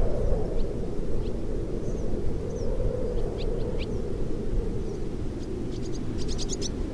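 Wind whistling through the open doors and sagging window frames of an old wooden shack, heard as a low, steady rush. Swallows chirp over it in short high notes, with a quick run of chirps near the end.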